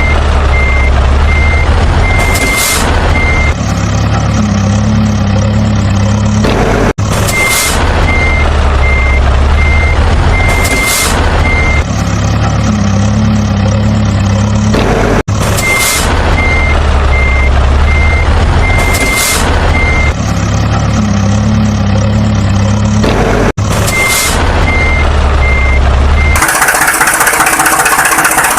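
Truck reversing alarm beeping about one and a half times a second over a truck engine's rumble, in runs of about four seconds that alternate with a few seconds of the engine alone; the pattern repeats about every eight seconds, with a short break between repeats. About two seconds before the end it switches to a different, hissier engine sound.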